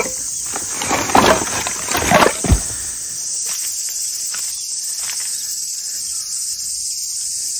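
Split firewood logs clattering out of a plastic crate onto gravel, a burst of wooden knocks over the first two and a half seconds. Underneath, a steady high-pitched chorus of cicadas keeps going.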